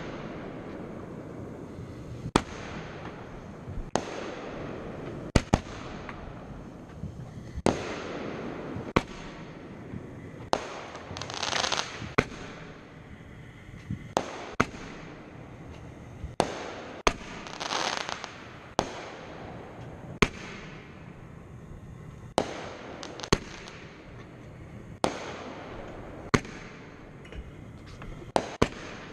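Aerial fireworks going off: a steady run of sharp bangs, roughly one every one to two seconds, each trailing off. There are short hissing bursts about a third and about two-thirds of the way through.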